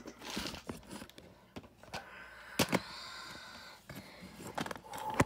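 Handling noise from a plastic LEGO build: scattered clicks and knocks, the sharpest about two and a half seconds in, over a short rustle in the middle.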